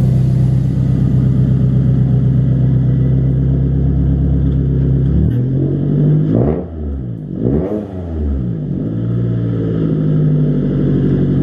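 2014 Scion tC's 2.5-litre four-cylinder engine running steadily at low revs, with the engine note bending up and down in pitch for a few seconds around the middle as the car moves out of the garage, then settling back to a steady low hum.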